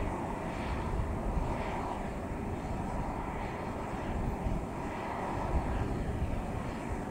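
Jet engines of an Airbus A320-family airliner running steadily at taxi power as it turns onto the runway, heard from a distance.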